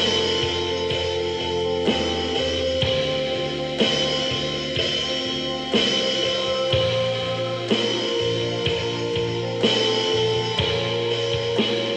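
Band music with a NUX DM-7X electronic drum kit keeping a steady beat, a strong accent hit about every two seconds, under held chords.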